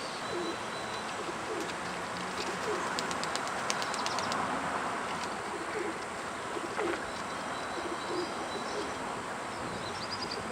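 Domestic pigeons cooing, low short coos repeated on and off over a steady background hiss, with a few faint clicks about three seconds in.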